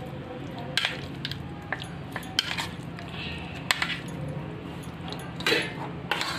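A spoon clinks and scrapes against a glass bowl at irregular intervals, about once a second, as meat pieces are stirred and coated in a yogurt-and-spice marinade.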